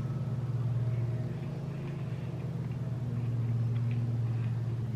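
A lawn mower engine droning steadily from next door, swelling and easing slightly as it runs.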